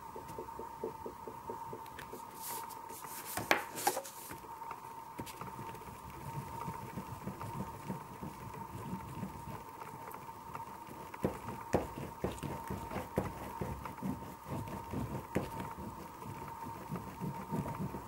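A hand rubbing and blending oil pastel on paper in quick back-and-forth strokes, a soft rhythmic scrubbing of about three strokes a second. A few sharper scratchy clicks come about three to four seconds in, and a steady high-pitched hum runs underneath.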